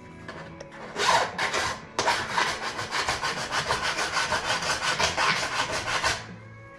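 A rapid run of rasping, saw-like strokes, about eight a second, lasting about four seconds after a short burst of scraping about a second in. It stops suddenly near the end.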